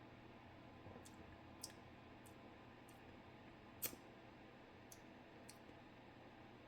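Near silence with about seven faint, sharp clicks scattered through it, the loudest a little before the middle.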